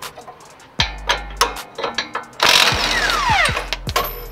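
Cordless impact wrench running on a 22 mm strut-to-knuckle nut for about a second and a half, starting a little past halfway, then winding down in a falling whine as the trigger is let go. Sharp metallic knocks and clinks come before and after it.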